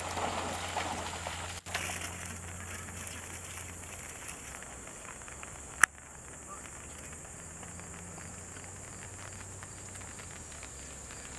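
Faint outdoor background noise with a light crackle, slightly busier in the first second or so, broken by a single sharp click about six seconds in.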